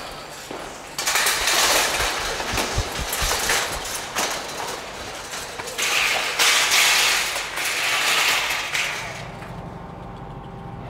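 Scuffling, scraping and clattering in loud, unpitched bursts, with a few dull knocks about two and a half seconds in, while a stray dog struggles to get away as it is caught.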